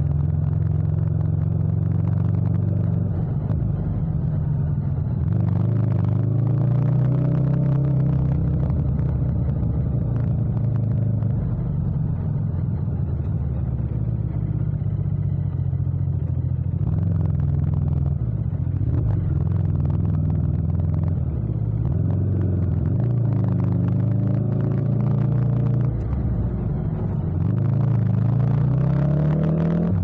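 Yamaha MT-07's 689 cc parallel-twin engine running at low revs in slow traffic, the revs rising and falling a few times with the throttle and climbing near the end as it accelerates.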